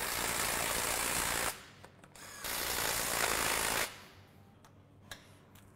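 Cordless power driver with a socket running down the bolts of a Ferguson tractor's hydraulic top cover: two runs of about one and a half seconds each, then a few faint clicks near the end.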